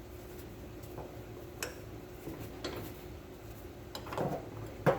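A few scattered light metallic clicks and clinks of a wrench and socket working on the shock absorber's mounting bolt, the sharpest just before the end, over a faint steady hum.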